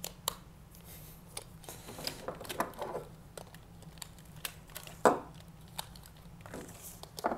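Handling noise from a large Power Rangers Dragonzord action figure: scattered clicks and knocks as its segmented drill tail is fitted on. The loudest knock comes about five seconds in.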